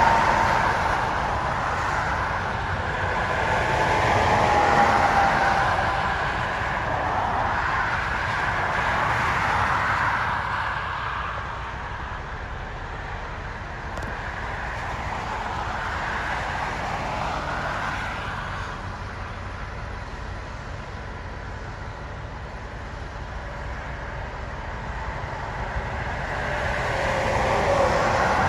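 Highway traffic passing close by, tractor-trailers among it: tyre and engine noise that swells and fades as each vehicle goes past. It is loudest at the start, about five seconds in and near the end, with a falling whine as one passes a few seconds in.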